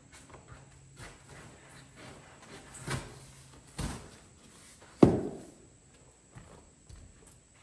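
Handling noise from unpacking a table saw from its cardboard box and packing: rustling and scattered knocks, with one loud thud about five seconds in that rings briefly.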